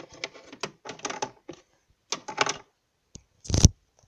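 Quick clusters of light plastic clicks and taps as small plastic toy pet figures are hopped along plastic toy-hotel furniture, then a single louder thump near the end.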